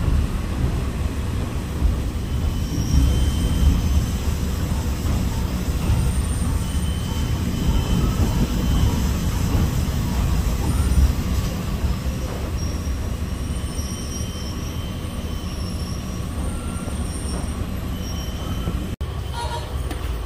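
KiHa 40 diesel railcar heard from inside the cabin as it rolls slowly into a station: steady engine and running rumble with thin high squeals from the wheels coming and going as it brakes to a stop.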